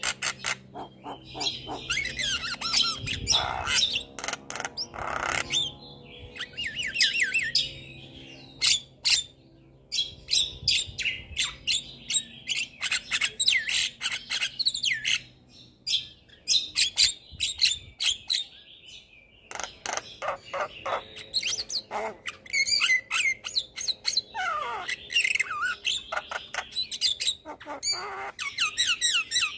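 Javan myna (jalak kebo) singing in full, varied song: fast runs of sharp clicks, harsh squawks and chatter, broken by short pauses, with whistled notes that include a falling whistle near the end.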